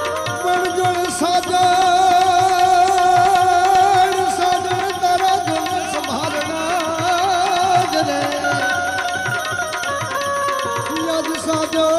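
Instrumental interlude of Gujarati folk devotional music: tabla playing a steady rhythm under a melodic instrument that holds long notes.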